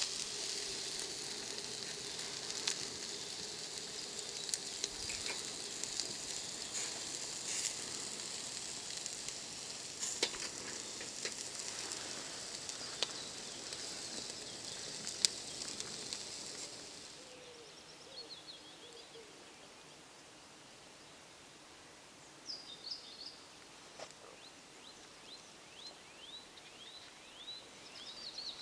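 Chunks of meat on metal skewers sizzling over a grill, a steady hiss with scattered sharp crackles and pops. About two-thirds of the way through the sizzling gives way to a quieter outdoor background with short bird chirps.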